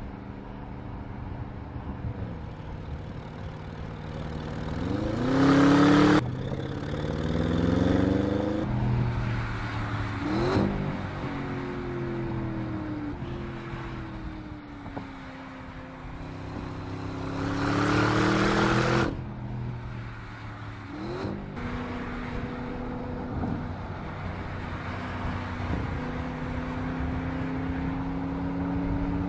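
Audi RS 7 Sportback's 4.0-litre twin-turbo V8 under acceleration: twice the engine note climbs steeply in pitch and breaks off sharply at an upshift. Between pulls it runs steadily with short pitch jumps at the gear changes.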